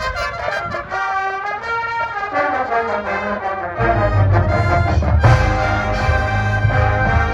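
High school marching band brass playing held chords while a lower line steps down; about four seconds in, the full band comes in louder with heavy low brass.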